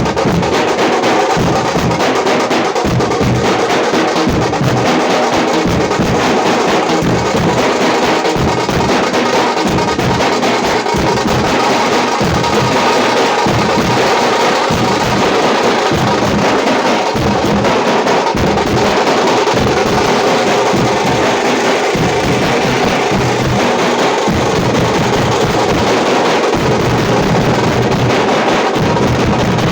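Tamate frame drums, the stick-beaten folk drums of Karnataka, played in a fast, unbroken rhythm of sharp strokes.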